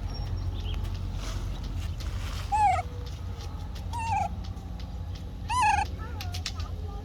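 Baby monkey giving short high-pitched calls, three of them about a second and a half apart, each rising and falling in pitch.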